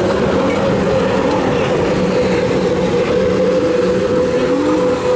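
Outboard engine of a small racing boat running flat out on the water, a steady high drone that sags slightly in pitch.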